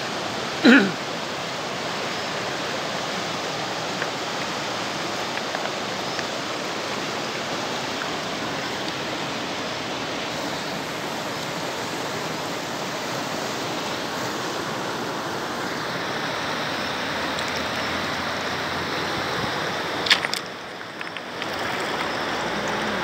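Steady rushing of a fast, shallow river over a boulder-strewn bed. A brief loud falling sound comes about a second in, and a short sharp sound comes near the end, after which the rushing dips for about a second.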